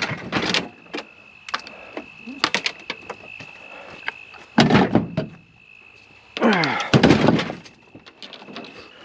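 Pieces of scrap metal being handled and tossed, a string of clanks and thuds with the loudest clatters about five and seven seconds in, some of them ringing briefly.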